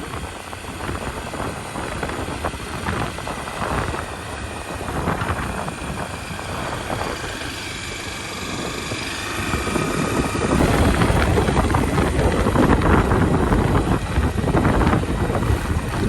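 Motorcycle riding on a gravel road: engine running under a steady rush of wind and tyre noise. About ten seconds in, the wind and rumble get louder.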